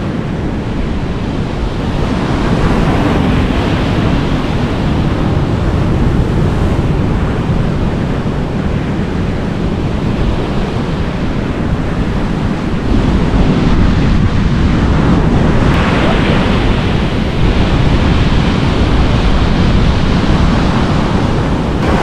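Wind buffeting the microphone over the steady wash of surf, a continuous rushing noise that grows louder from a little past halfway.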